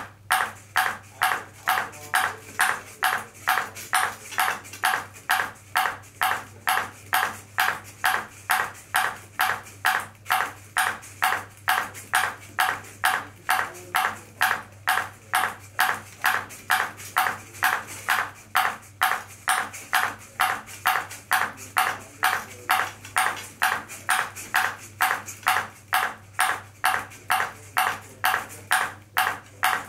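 Ping pong ball bouncing steadily on the robot's dish, a sharp click about twice a second in an even rhythm, over a faint low hum.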